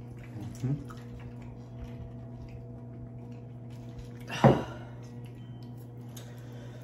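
A glass set down on the table with one loud clunk about four and a half seconds in, over a low steady hum.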